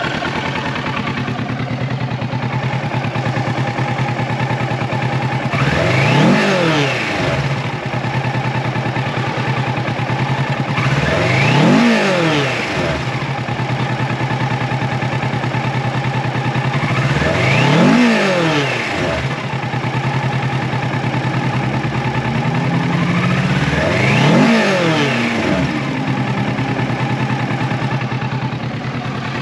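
2020 Kawasaki Ninja 650's parallel-twin engine idling in neutral, its throttle blipped four times about six seconds apart. Each rev rises and falls back to idle within about a second and a half.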